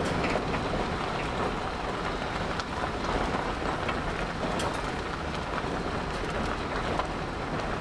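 Steady wind buffeting the microphone outdoors, a low, even rumble with a few faint clicks.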